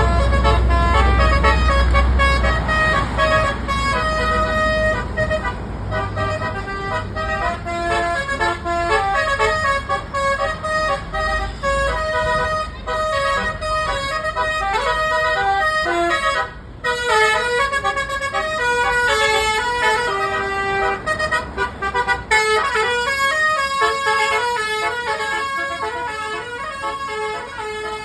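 A bus's basuri (telolet) air horn playing a quick melody of separate held notes that step up and down, over the low rumble of the bus's engine, which is heaviest in the first couple of seconds.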